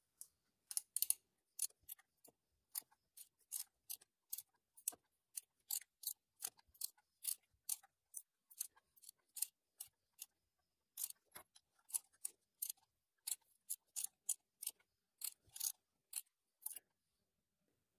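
Ratchet on a 22 mm socket clicking as it is swung back and forth to turn the BMW N42/N46 engine's crankshaft over by hand. It makes irregular short clicks at about two a second and stops near the end.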